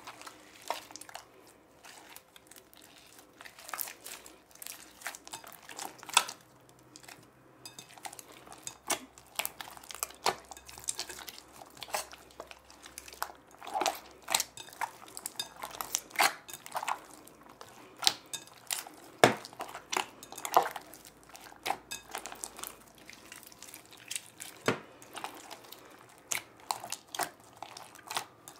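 A large batch of glue slime being kneaded and folded by hand in a glass bowl, still partway through activation. It makes an irregular run of wet squelches and sharp little clicks and pops, several a second.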